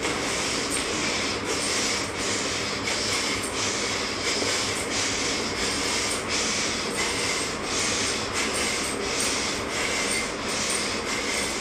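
Rhythmic swishing, about three strokes every two seconds, in time with fast repeated arm swings of a yoga exercise: cotton sleeves and hands moving through the air close to the microphone.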